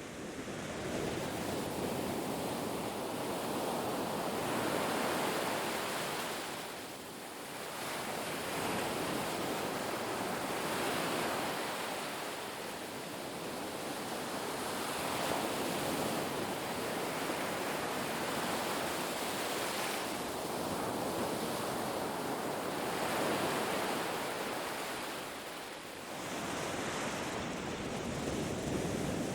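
Ocean waves breaking on a beach, a steady rushing surf that swells and eases as successive waves come in.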